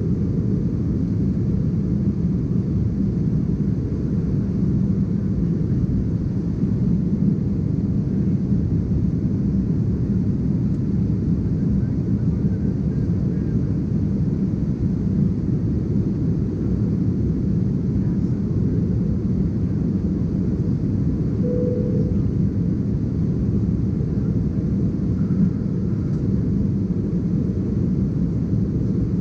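Steady low cabin drone inside an Embraer ERJ-190SR in flight: its GE CF34-10E turbofan engines and the airflow over the fuselage, heard from a seat beside the wing, with most of the sound deep and even.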